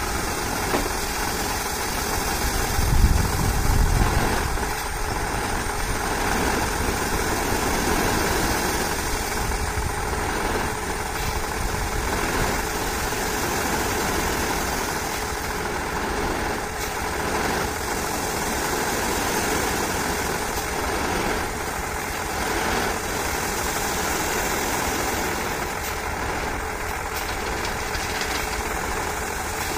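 Tata SE1613 tipper truck's diesel engine running steadily while the raised bed tips out its load of crushed stone, with the gravel sliding and rushing out of the body. A brief louder low rumble comes about three seconds in.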